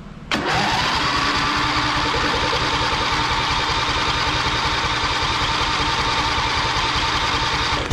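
Freshly swapped small engine on a riding lawn tractor starting for its first test run with the choke on at half throttle. It catches about a third of a second in, picks up speed briefly, then runs steadily until it shuts off near the end.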